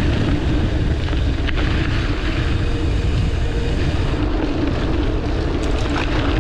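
Wind rushing over the camera microphone of a mountain bike descending fast on a dirt forest road, with steady tyre noise and a few light knocks from bumps.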